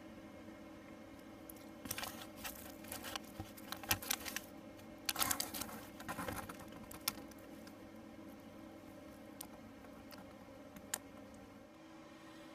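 Light clattering and rustling of small objects being handled: a cluster of clicks and rustles for several seconds, then a few single clicks, over a steady low hum.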